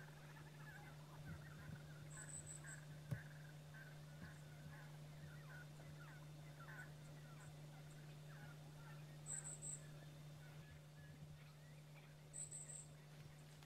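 Faint, busy chirping of birds, with a short high pulsed call heard three times, over a steady low hum. A single soft knock about three seconds in.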